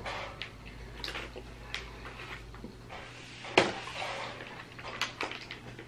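Plastic candy bag crinkling and crackling in the hands as a gummy is taken out, in short irregular crackles, with one sharper click about three and a half seconds in.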